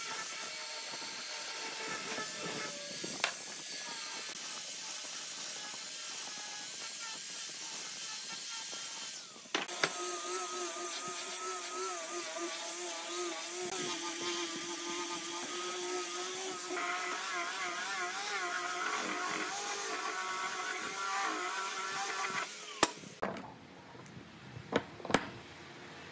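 Electric angle grinder fitted with a sanding drum, then a sanding disc, running and sanding wood, its motor whine wavering in pitch as it is pressed against the work. The sound breaks off briefly about a third of the way in and stops shortly before the end, followed by a few sharp knocks.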